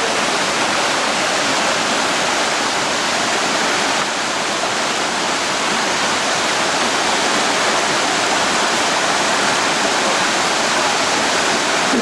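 Loud, steady rush of water from a mountain stream tumbling over rocky cascades into pools.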